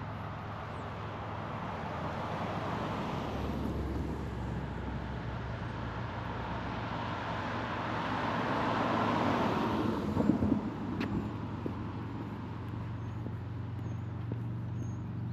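Road traffic: a vehicle passes, its noise swelling to a peak about nine seconds in and then fading, over a steady low engine hum, with a short knock just after the peak.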